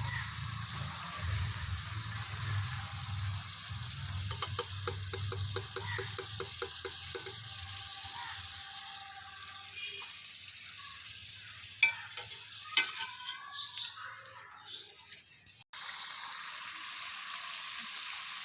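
Potato fries frying in hot oil with a steady sizzle. Early on a utensil stirs them, tapping against the pan about four times a second for a few seconds, with a few scattered knocks later. The sound drops out briefly about three-quarters of the way in, then the sizzle resumes.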